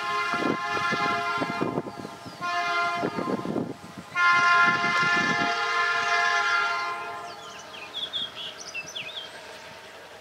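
Approaching train's locomotive horn sounding three blasts, long, short, then a long loudest one that fades out. This is the horn signal for the grade crossing ahead. A few faint bird chirps follow.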